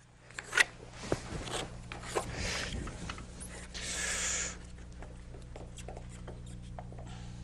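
Lumber being handled: a few light knocks, then a brief scraping rustle about four seconds in, over a steady low hum. The circular saw is not running.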